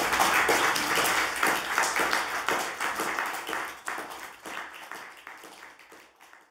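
Audience applauding, dense clapping that thins out and fades away near the end.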